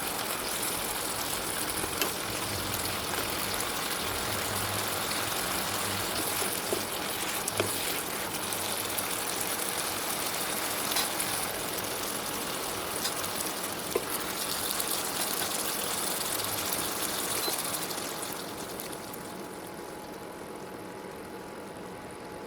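Shrimp and mixed vegetables sizzling as they stir-fry in a hot pan, a steady hiss with a few sharp clicks, dying down near the end.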